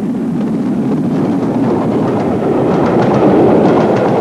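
Steam-hauled passenger train running past: a steady noise of wheels on the rails that grows louder as the coaches come by, with a run of sharp clicks from the wheels over the rail joints from a little past halfway.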